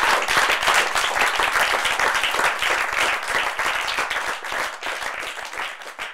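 Audience applauding: dense clapping that gradually thins and fades near the end.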